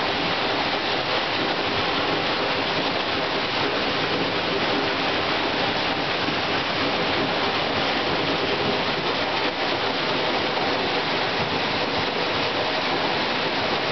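North Falls, a tall waterfall, pouring into its plunge pool: a steady, even rush of falling water, heard close up from behind the falls.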